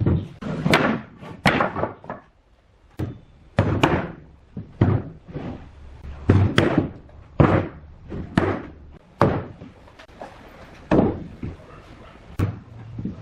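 Heavy blows struck on solid wood, an irregular series of knocks about one a second, with a short pause about two seconds in.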